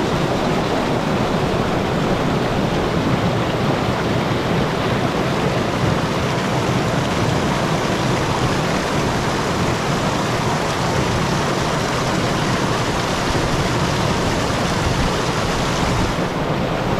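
Small waterfall pouring and splashing onto rock: a steady, loud rush of falling water that turns a little duller near the end.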